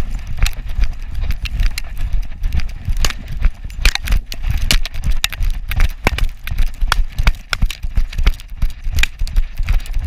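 Rhythmic thuds and rustling of a dog bounding through snow and dry brush, heard from a camera strapped to its harness, the mount jolting with each stride.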